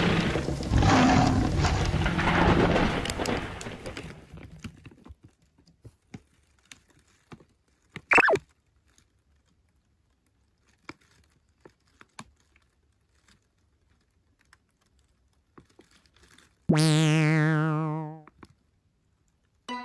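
Edited cartoon sound effects: a loud thunder-like rumble that dies away over the first four seconds, then faint scattered clicks and a short high blip about eight seconds in. Near the end comes a warbling, boing-like dizzy effect with a falling sweep, lasting about two seconds.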